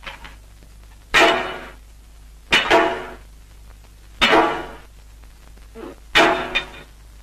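Repeated sharp metallic clangs, four loud strikes about every one and a half seconds, each ringing out briefly before fading, over a steady low hum.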